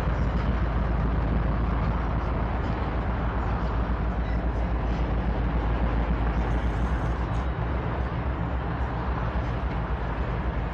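Freight train of covered hopper cars rolling slowly past, a steady low rumble of steel wheels on the rails.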